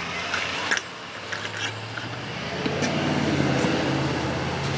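A motor vehicle's engine running with a low, steady hum that grows louder about halfway through, with a few light clicks near the start.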